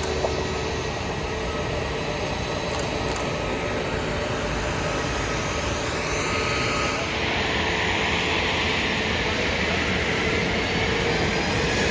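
Jet airliner engines running as an aircraft moves near the runway: a steady rush that grows louder about halfway through.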